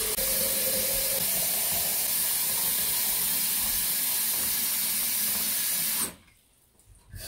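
Kitchen faucet running a steady stream of tap water into a glass jar of ice, shut off about six seconds in.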